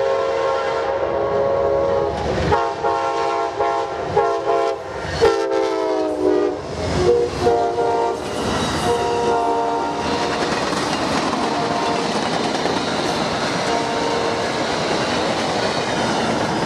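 An Amtrak passenger train led by GE Genesis diesel locomotives passes at speed while sounding its multi-chime horn. The horn gives two long blasts, a short one and a long one, the usual grade-crossing signal, and its pitch drops as the locomotive goes by, followed by a few more blasts at the lower pitch. After that the passenger cars rumble and clatter past on the rails.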